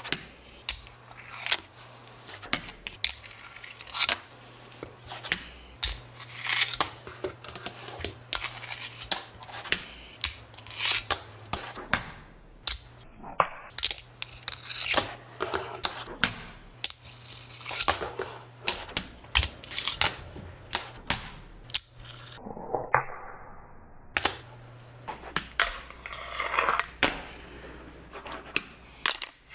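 Fingerboard tricks on a granite ledge and a tabletop: repeated sharp clacks of the small board popping and landing, with short scrapes of the trucks and deck sliding along the stone edge.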